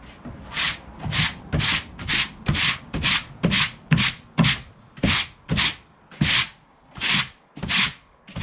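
Push broom with stiff bristles sweeping across a rubber floor mat in quick back-and-forth strokes, about two scratchy swishes a second.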